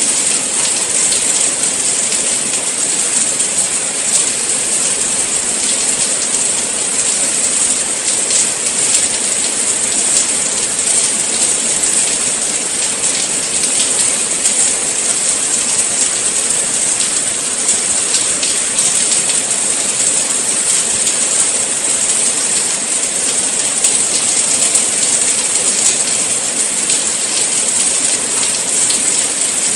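Steady rain falling: a constant, even hiss full of fine drop taps.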